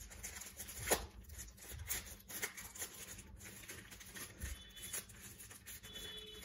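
Clear plastic pouch rustling and crinkling faintly as hands open it and slide out paper cards, with a sharper crinkle about a second in.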